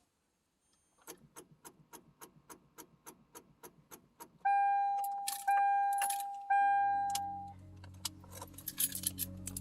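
A fast run of sharp clicks, about five a second, then three loud chime tones about a second apart, each fading away, like a car's electronic warning chime. A low steady hum comes in with the third chime.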